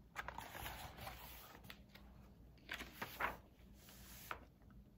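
Faint rustling and a few soft clicks of a hardcover picture book being handled as it is lowered and its page turned, a little louder about halfway through.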